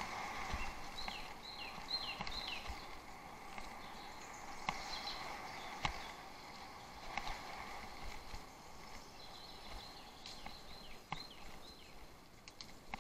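Bicycle ridden off-road: scattered sharp knocks and rattles over rough ground, under a steady high tone that fades through the first half. Clusters of short falling chirps come twice, near the start and about ten seconds in.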